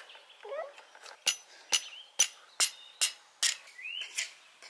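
A run of about seven sharp knocks on wood, roughly two a second, from wooden stakes being struck.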